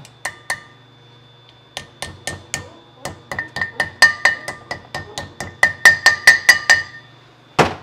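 Hammer tapping a driver to seat a new inner wheel seal into a disc-brake rotor hub. It starts with two light taps, then a run of quick taps, about four a second, with a metallic ring that grows louder toward the end, and one last tap.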